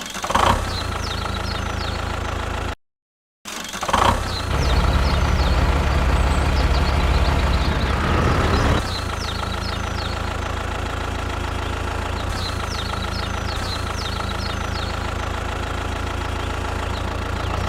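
Engine idling steadily, louder for a few seconds from about four and a half to nine seconds in, with a brief total dropout near three seconds. Small bird chirps sound faintly throughout.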